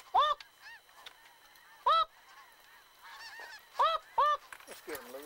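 Goose honking: loud calls that rise and fall in pitch, some in quick pairs, about every two seconds, with fainter honks in between.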